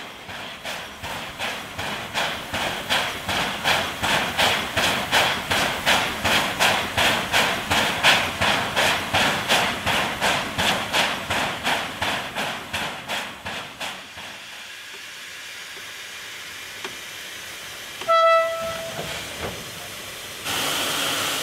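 JS-class 2-8-2 steam locomotive working slowly, its exhaust chuffing evenly at about three beats a second, then dying away about fourteen seconds in. A short whistle note sounds a few seconds later, and a steady hiss of escaping steam starts near the end.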